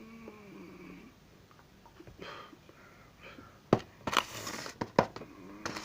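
Several sharp clicks amid rustling and crackling noise, starting a little past halfway.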